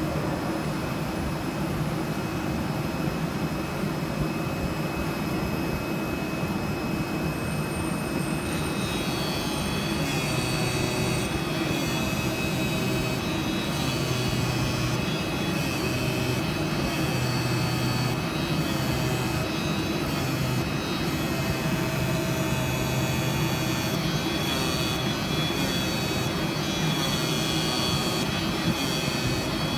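CNC flatbed knife cutting and creasing machine running while it cuts and creases a cardboard sheet: a steady machine noise. Higher whining tones join about nine seconds in.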